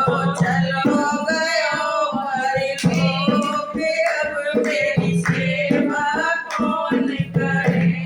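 A Hindu devotional bhajan sung by a man over music, with a steady low accompaniment and sharp, repeated percussion strokes.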